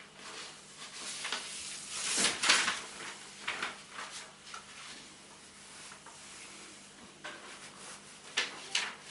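Irregular scratchy rubbing strokes and light knocks at a whiteboard, loudest about two seconds in, with two more sharp strokes near the end.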